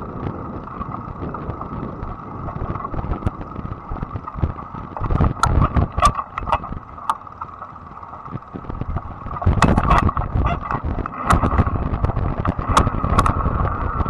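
Fat-tire e-bike ridden over a bumpy dirt trail: a steady high motor whine over wind rumble on the microphone, with clusters of rattles and knocks as the bike jolts over bumps, about five seconds in and again from about ten to thirteen seconds.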